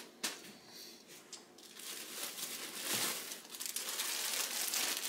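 Clear plastic poly bags around packaged clothing crinkling as they are handled. The sound starts with a few faint ticks and grows louder and steadier from about halfway through.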